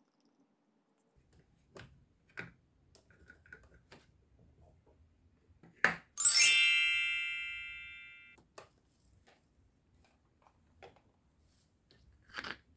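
A single bright bell-like ding about six seconds in, just after a light knock, ringing out and fading over about two seconds. Around it, a few faint clicks and taps of plastic toy pieces and play-dough being handled.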